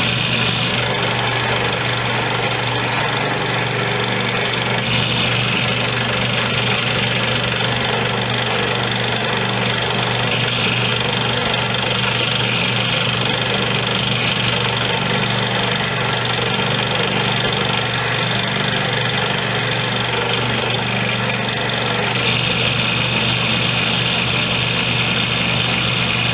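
Motor-driven wire wheel running steadily, a constant motor hum under a scratchy hiss as rusty steel vise parts are held against the wheel to strip off the rust.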